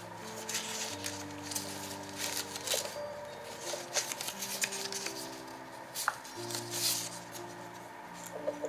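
Soft background music of slow held chords, over the dry rustling and flicking of paper cards being leafed through by hand, with a few louder rustles about 4 and 7 seconds in.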